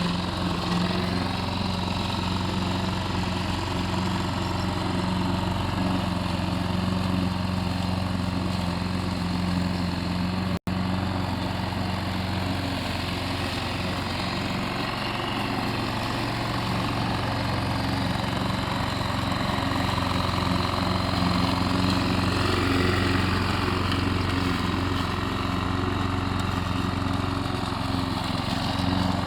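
Engine of a homemade remote-controlled lawn mower running steadily at an even speed, cutting out to silence for an instant about ten seconds in.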